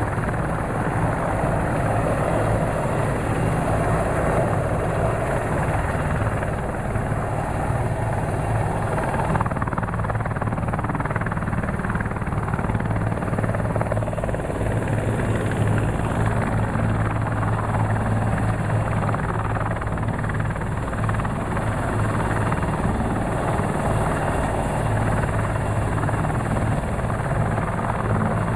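Bundeswehr CH-53G twin-turbine heavy transport helicopter hovering low, its rotor and engines making a loud, steady noise with a strong low beat.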